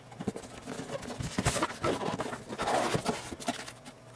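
Cardboard packaging and paper leaflets being handled as a Corsair H100 liquid CPU cooler is unboxed: scattered rustles, scrapes and light knocks.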